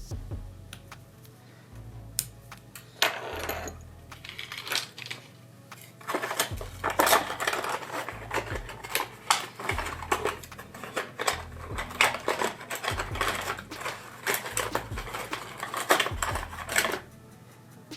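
Small plastic clicks, taps and scraping as a tool prizes up the plastic antenna cover of a Samsung Galaxy A52 phone. Scattered at first, then a dense run from about six seconds in, stopping just before the end.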